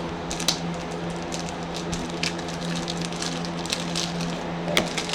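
Baseball trading cards being handled and sorted: light crackling and scattered small clicks over a steady low hum.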